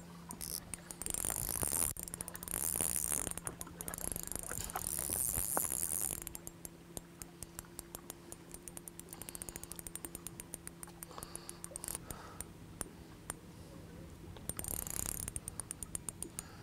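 Fishing reel's drag clicking and buzzing as a hooked fish takes line, loudest for the first six seconds and again briefly near the end, with a long run of rapid ticks from the reel in between.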